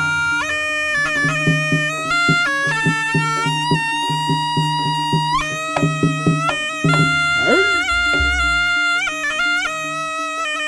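Javanese Jaranan music led by a slompret, a reedy double-reed shawm, playing long held notes that bend and slide in pitch, over steady, evenly repeating percussion strokes.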